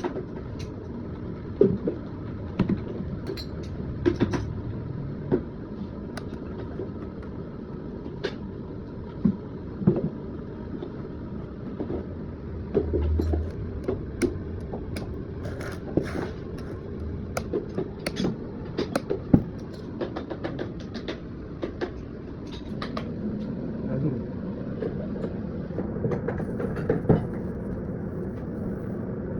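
A steady low background hum with many scattered sharp clicks and knocks, like small tools or objects being handled.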